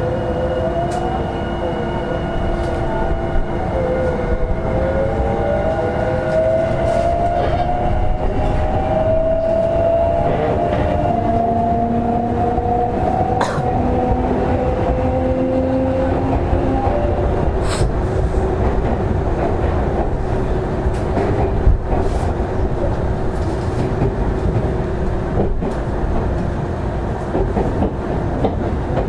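Semboku 7020 series electric train heard from inside the car, its traction motors whining in several tones that glide upward in pitch through roughly the first half as it picks up speed. Under the whine runs a steady rumble of wheels on rail, with a few sharp clicks.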